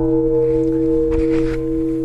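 Large bronze Japanese temple bell (bonshō) ringing on after a strike: a deep, steady hum of several tones, slowly fading.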